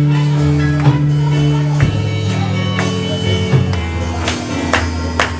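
Worship music: sustained low chords that change every second or two, with scattered drum hits.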